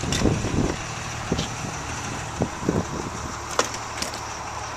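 A steady low mechanical hum, with a few short knocks and clicks, the sharpest about three and a half seconds in.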